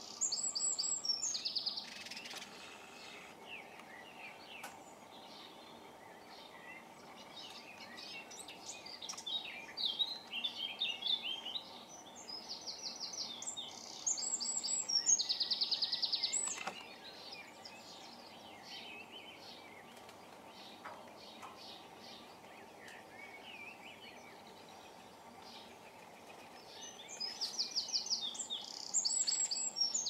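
European robin singing: several bursts of high, varied warbling phrases with fast trills, a few seconds each and separated by pauses, over a steady background hum.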